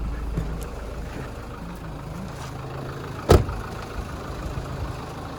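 Hyundai Terracan engine idling steadily, with one sharp knock a little over three seconds in and a few faint clicks after it.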